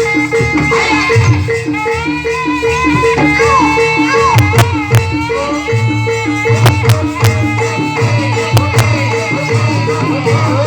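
Traditional Indonesian ensemble music: a quick, even two-note pattern of tuned percussion, drums, and a wavering melody line above, with sharp percussive clicks now and then.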